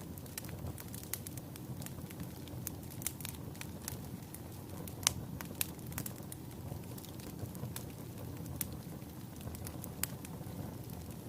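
Wood fire burning in a fireplace: a steady low rush of flames under frequent sharp crackles and pops, the loudest pops about five seconds in.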